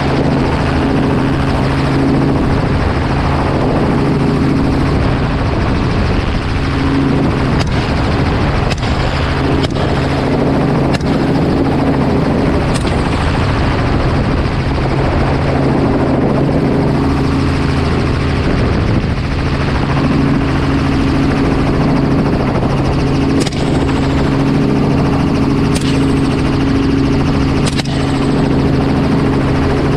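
Helicopter engine and rotor running steadily, heard from inside the doors-off cabin as a loud, even drone with rushing air.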